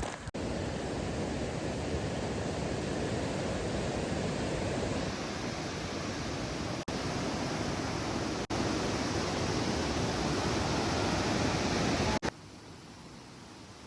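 Steady rushing noise that breaks off for a moment three times, then drops to a fainter hiss after about twelve seconds.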